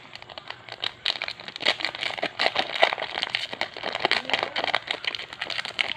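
A foil Yu-Gi-Oh! booster pack wrapper crinkling as it is handled and opened, a dense run of sharp crackles that starts about half a second in.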